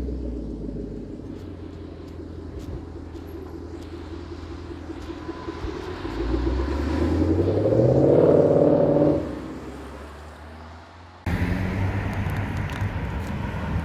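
Ford Mustang GT's 5.0-litre V8 idling with a short rev blip, then accelerating hard from a standstill about six seconds in, its exhaust note rising in pitch and at its loudest before fading as the car drives off. About eleven seconds in, the sound cuts to another sports car's engine running as it approaches.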